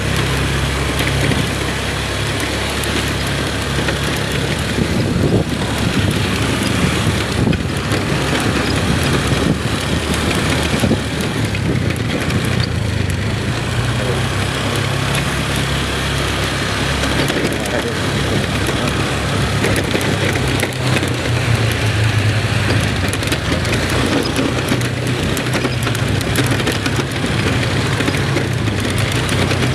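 A road vehicle travelling with its engine running steadily, mixed with a constant rushing noise.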